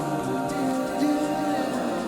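Background music with slow, long-held singing tones.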